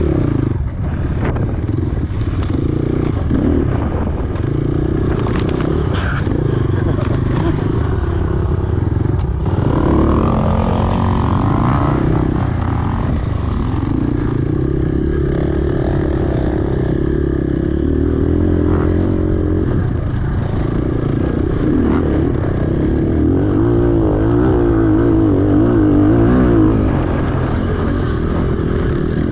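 250 cc enduro motorcycle engine running under load as the bike is ridden off-road, its pitch rising and falling with the throttle, with a climb about a third of the way in and uneven revving near the end.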